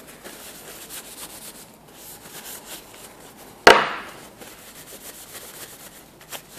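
Paper towel rubbed briskly over a freshly waxed wooden piece, a soft scuffing wipe, with one sharp knock a little over halfway through.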